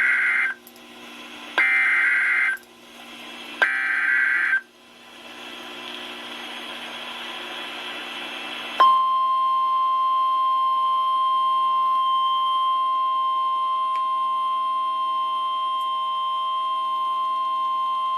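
NOAA Weather Radio Emergency Alert System signal: three short bursts of screeching SAME header data about two seconds apart, a few seconds of hiss, then the steady single-pitch 1050 Hz warning alarm tone from about nine seconds in. The tones announce that a new warning message is about to be read.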